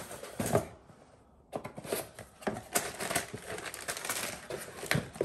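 Packaging being handled: a cardboard box knocks about half a second in, then plastic bags and paper crinkle and rustle steadily from about a second and a half on as brake pads and their hardware are unpacked.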